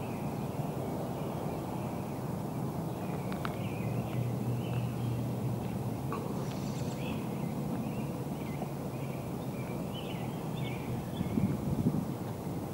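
Scattered birds chirping over a steady low outdoor hum.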